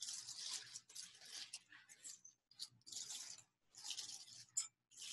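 Thin plastic sheet crackling and rustling in short bursts as it is peeled open off a wet-felted wool piece, checking how far the felting has gone.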